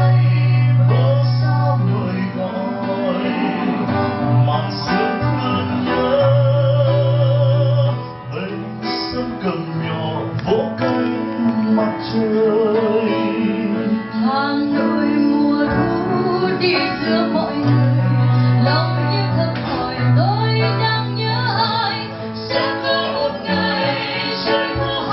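A woman and a man singing a duet into microphones, accompanied by acoustic guitar. Held notes waver with vibrato.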